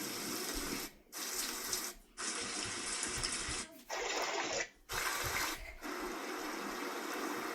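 A sound machine cycling through its white-noise and nature-sound tracks: a run of steady, water-like hiss sounds, each about a second long, broken by short gaps as the next track starts.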